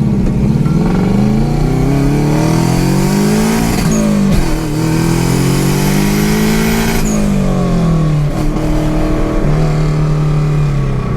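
Turbocharged car accelerating hard through two gears: the engine pitch climbs, drops at a shift about four seconds in, climbs again, drops at another shift about seven seconds in, then holds steady. A faint high whistle rises along with the pulls; four cheap turbo whistles are stuck in the exhaust.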